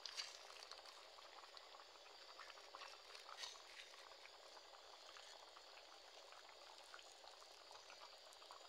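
Faint bubbling and popping of a pot of beans at a boil, with a couple of slightly louder clicks near the start and about three and a half seconds in.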